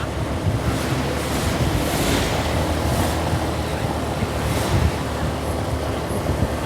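Wind buffeting the microphone over a low, steady rumble of road traffic.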